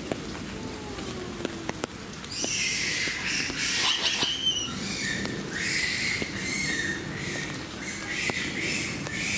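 A quick run of short, high-pitched squeaky animal chirps, starting about two seconds in and repeating every half-second or so.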